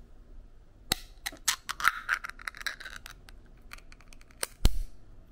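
Ring-pull lid of a small aluminium can being peeled open by hand: a sharp crack as the seal breaks about a second in, then a quick run of clicks and scraping metal as the lid tears free around the rim. A single loud thump near the end.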